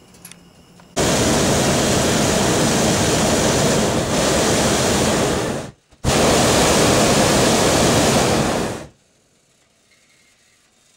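Hot air balloon's propane burner firing in two long blasts, the first about five seconds long, the second about three seconds after a brief break, each starting and stopping abruptly.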